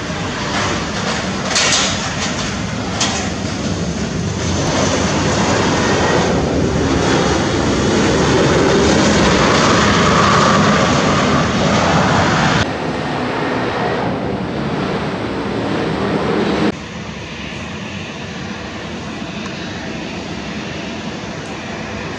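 Embraer 190 twin-turbofan jet engines during the landing roll and taxi: a loud, rushing engine noise that swells over the first ten seconds or so, drops abruptly twice, then settles to a lower, steady run as the jet taxis.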